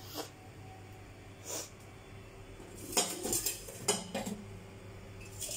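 Steel cookware clinking and scraping: a couple of single clinks, then a busier run of clinks and scrapes in the middle, and one more near the end.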